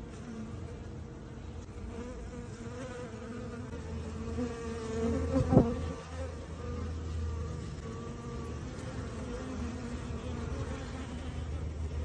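Honeybees buzzing: the steady, slightly wavering hum of a large swarm crowded close around. A short, loud bump comes a little past halfway.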